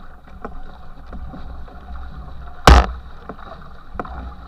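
Racing canoe being paddled hard, with regular paddle strokes and the wake rushing and churning behind the stern. About two and a half seconds in, one loud, sharp hit stands out.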